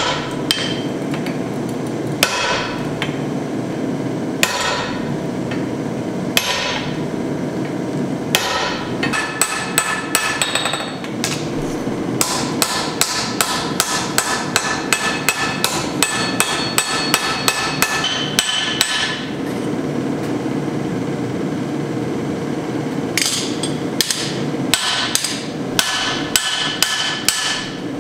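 Hammer blows on red-hot axe steel on an anvil, with the steel ringing: single heavy strikes about every two seconds at first, then quick runs of about three blows a second, a pause of a few seconds, and another quick run near the end. A gas forge runs with a steady roar underneath.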